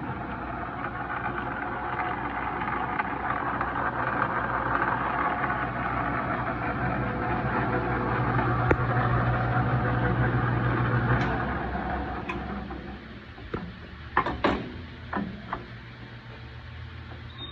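JET 12x40 belt-drive metal lathe running steadily with a low hum, then winding down about eleven seconds in. A few sharp clicks and knocks follow near the end.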